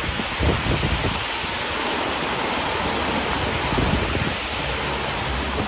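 Heavy rain pouring down onto a street: a loud, steady, dense hiss, with uneven low rumbling underneath.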